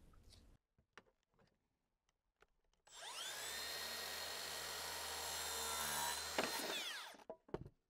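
Circular saw spinning up about three seconds in, running steadily as it cuts through a 35×45 mm timber board, then winding down near the end.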